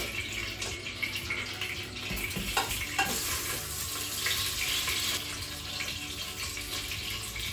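Sausages sizzling in hot olive oil in the sauté-mode inner pot of a Crockpot Express pressure cooker as a fresh batch goes in. The sizzle grows louder about three seconds in, with a few light knocks just before.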